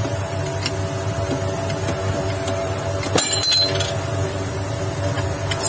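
A single sharp metal clink with a short ring about three seconds in, as the crankshaft's gear comes free of the shaft in the puller and lands on the steel bench, over a steady background hum.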